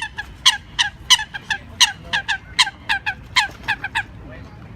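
Ducks calling in a rapid run of short, loud, downward-sliding calls, about four a second, that stop about four seconds in.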